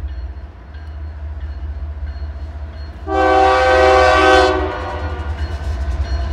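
Diesel freight locomotive's multi-note air horn sounding one long blast that starts about three seconds in and cuts off sharply a second and a half later, over a steady low rumble.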